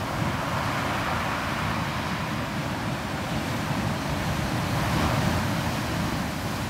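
Ocean waves breaking and churning: a steady rushing roar of surf with a low rumble, swelling a little about five seconds in.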